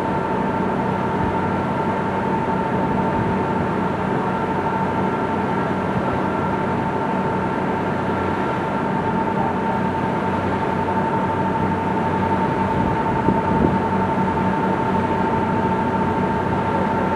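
Cruise boat's engines running steadily: a low drone with a constant high whine over an even rushing noise.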